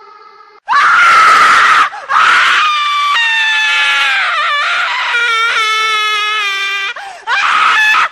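Loud, high-pitched screaming that starts suddenly about half a second in and goes on as several long screams, with short breaks near two seconds and near seven seconds; a scream sound effect added for a jump scare.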